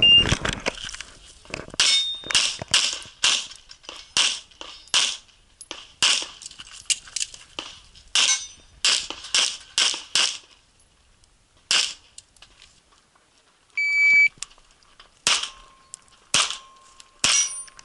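Rapid semi-automatic pistol shots from an IPSC Classic-division stage, many fired in quick pairs. About 14 seconds in, after a short pause, a shot timer beeps once and the firing starts again.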